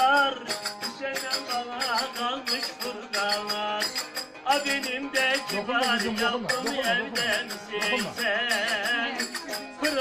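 Turkish folk song performed live: a small bowl-bodied lute strummed quickly and continuously, with a man's voice singing a wavering, ornamented melody over it.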